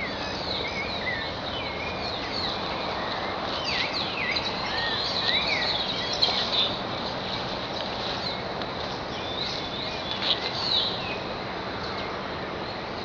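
Several birds chirping and singing: many short calls that rise and fall in pitch, a few louder ones now and then, over a steady rushing background noise.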